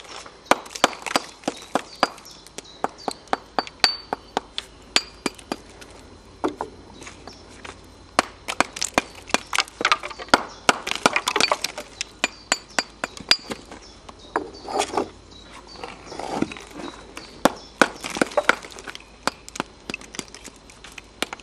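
Brick axe chipping old lime mortar off a reclaimed Victorian glazed brick held in the hand: quick, sharp strikes, several a second with short pauses, and bits of mortar clinking off.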